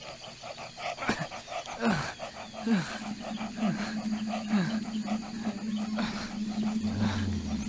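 Film sound design: a steady low drone comes in about three seconds in, under a run of downward-swooping tones about once a second and fast, even ticking. Two short low hums sound near the end.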